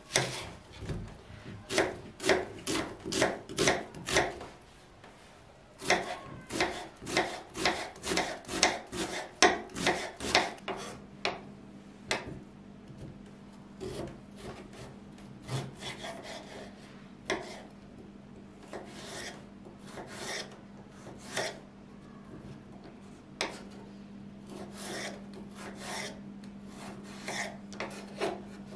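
Kitchen knife chopping through onion and carrot onto a bamboo cutting board: quick runs of even strokes, about two to three a second, for the first ten seconds or so, then slower, scattered cuts. A steady low hum comes in about a third of the way through.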